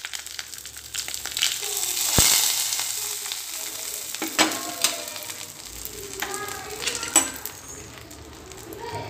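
A hot coconut-oil tempering of mustard seeds, dried red chillies and curry leaves poured into buttermilk curry, sizzling and crackling. The sizzle surges with a sharp crack about two seconds in, then dies down to scattered pops.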